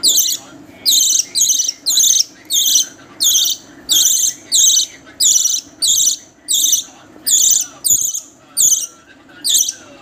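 Budgerigar chick giving loud, shrill begging calls, about two a second, during hand-feeding.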